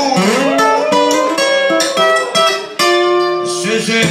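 Live acoustic guitar strummed with a voice singing over it.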